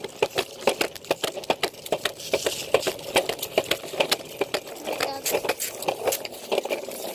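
Rapid, even series of sharp knocks or taps, about five a second.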